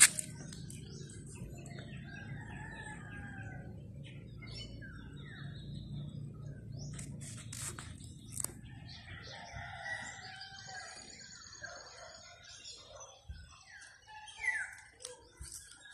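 Several birds chirping and calling: short repeated notes and whistled glides, with a louder rising call near the end. A low steady hum runs underneath and fades out about halfway through.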